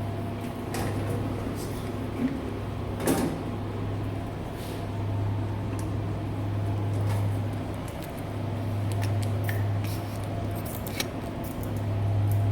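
A steady low hum, with scattered clicks and knocks over it, the loudest about three seconds in.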